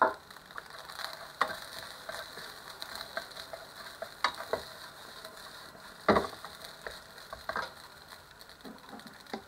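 Fried rice sizzling in a nonstick pan while a wooden spatula stirs and turns it, scraping the pan and knocking against it sharply a few times, loudest right at the start and about six seconds in.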